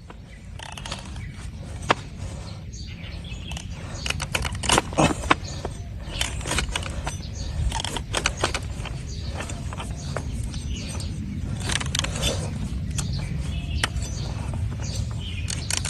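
A trimming blade cutting and scraping hard, overgrown donkey hoof horn: irregular crisp cuts and scrapes, a few sharper than the rest, over a steady low rumble.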